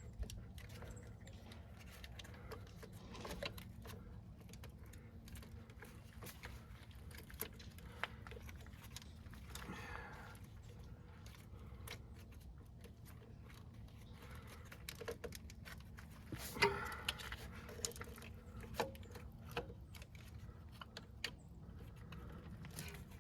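Scattered light clicks and metallic clinks of hand tools and engine parts being handled, over a steady low hum. There are brief vocal sounds about ten seconds in and again near 17 seconds, where the loudest click falls.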